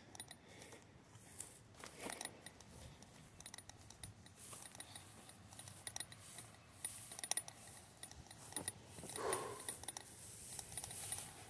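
Footsteps and rustling through dry brush on rough ground, with scattered small clicks and light metallic jingling of carried gear. A short falling tone comes about nine seconds in.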